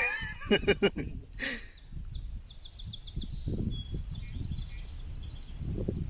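A few sharp clicks and a brief wavering call in the first second or two, then small birds chirping faintly over low wind rumble on the microphone.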